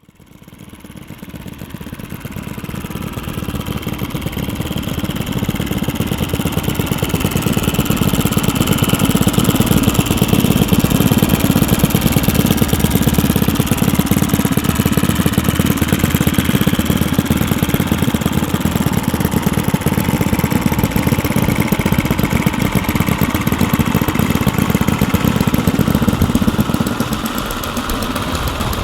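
Two four-stroke model aircraft glow engines, an OS FS-62V tractor and a Saito FA-62 pusher on a radio-control Cessna 337 Skymaster, running steadily on a ground test. The sound fades in over the first few seconds and eases slightly near the end.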